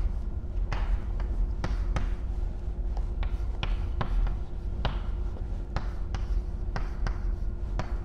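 Chalk tapping and scraping on a blackboard as a chemical formula is written: irregular sharp taps and short strokes, roughly one or two a second, over a steady low hum.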